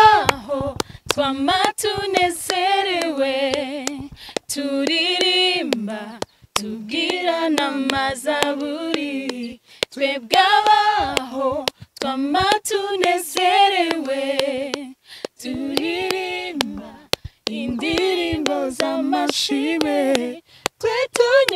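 A cappella gospel singing: a female voice, perhaps joined by others, sings phrases of a few seconds each with held notes and short breaks between them, with no instrument.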